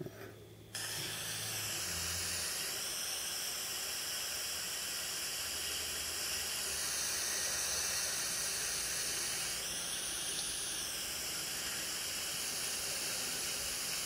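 A clip recorded on a 4th-generation iPod Touch with its Wi-Fi turned off, played back through the iPod's speaker: a steady hiss of recording noise that starts abruptly about a second in. No ticking comes through; with the Wi-Fi off, the Wi-Fi card's ticking interference is gone.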